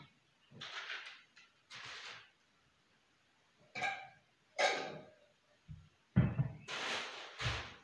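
Things being picked up and set down while clearing a glass-topped table: a string of short knocks, clinks and plastic-bag rustles as a jar, packets and bags are moved about.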